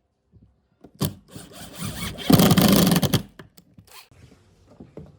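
A knock, then about two seconds of rasping scraping, as of a hand tool worked over wood, loudest just before it stops, followed by a few light taps.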